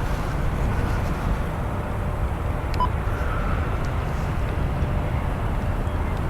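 Distant jet aircraft noise: a steady low rumble without breaks.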